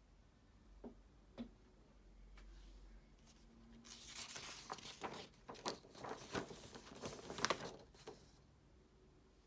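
Paper pages of a printed workbook rustling and crackling as they are handled and the cover sheet is turned over, with several sharp crackles, loudest near the end. Two small taps come about a second in.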